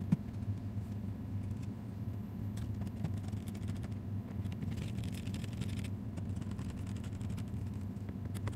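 A Phillips screwdriver working the small bottom-cover screws of a laptop: a few light clicks and a brief scratchy turning noise, over a steady low hum.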